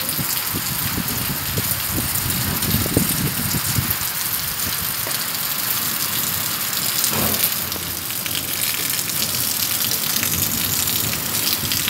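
Heavy rain falling steadily on brick paving and walls: a dense, even hiss with irregular low thuds underneath.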